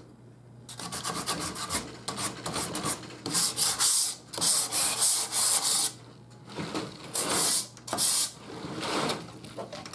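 Hand sanding block rubbed back and forth along the edge of a black-painted wooden frame, scuffing through the paint to distress it: a run of quick sanding strokes with brief pauses near the middle and toward the end.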